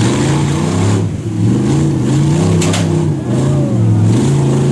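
An engine revving up and down over and over, its pitch rising and falling several times.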